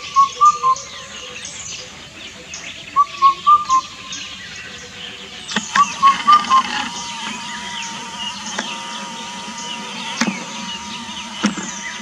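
Indian cuckoo singing its loud four-note hooting song, three phrases about three seconds apart, each four short notes with the last one lower. Other small birds chirp throughout.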